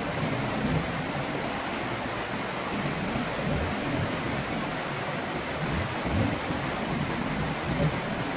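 Shallow river rapids rushing over rocks: a steady, unbroken noise of fast-flowing water.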